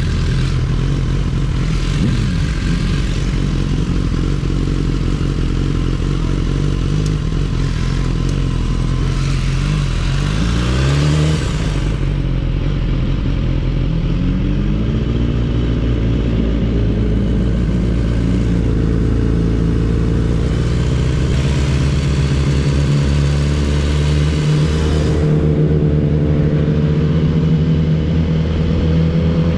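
Sport motorcycle engine running while riding at low speed, its pitch rising and falling as the throttle opens and closes a couple of times around the middle and climbing again in the last third, with wind noise on the microphone.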